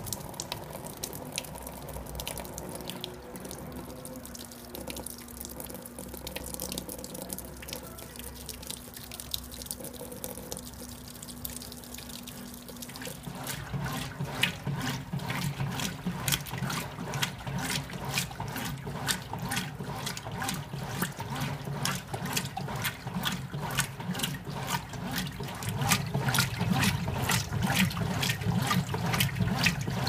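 Whirlpool WLA8444 belt-drive top-load washer filling, with water pouring into the tub. About halfway through, the motor and transmission start and the agitator begins churning the water with a steady rhythmic sloshing, marking the start of the wash agitation.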